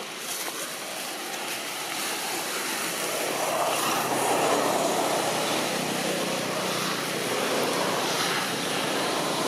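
A distant engine drone, swelling about three seconds in and then holding steady.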